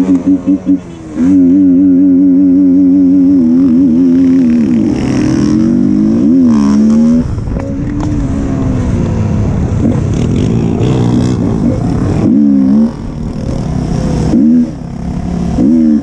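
KTM Duke 200's single-cylinder engine revving hard, with quick throttle blips near the start and then held at high revs, the pitch sliding down and back up and the revs dropping off briefly a few times near the end.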